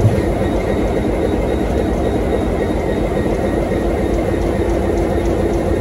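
EMD 12-645E3C turbocharged two-stroke V12 diesel engine of an N class locomotive running, a steady low rumble heard close beside its closed engine-room doors. A faint steady tone comes in about four seconds in.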